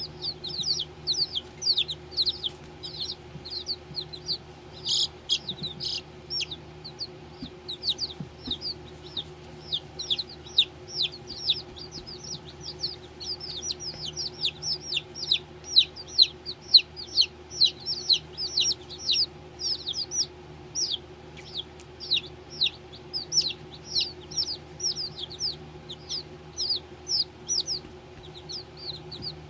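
Baby chicks peeping continuously: a rapid stream of short, high, downward-sliding peeps, several a second, over a steady low hum.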